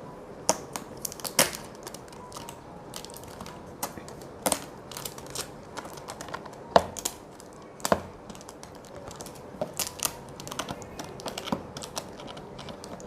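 Irregular sharp clicks and taps, a dozen or so louder ones scattered through the stretch, from things being handled by hand.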